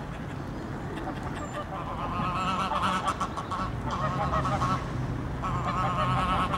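Greylag geese honking in three quick bouts of rapid, wavering cackling calls, beginning about two seconds in.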